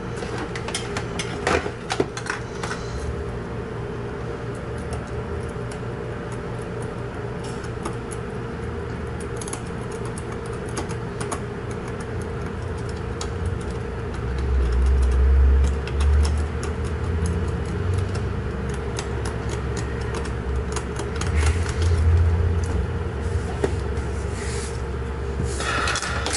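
Small scratches and clicks of a pointed metal tool scraping at the terminals of a small buzzer speaker from a truck instrument cluster, over a steady background hum. Low thumps of handling come a little past the middle and again later.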